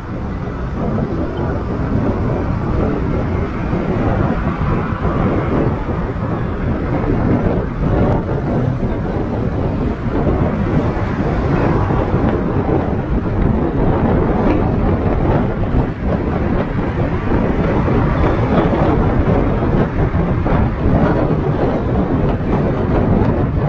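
Kia K3 (Cerato) car driving in traffic: a steady rumble of tyre and wind noise, growing slightly louder over the first few seconds.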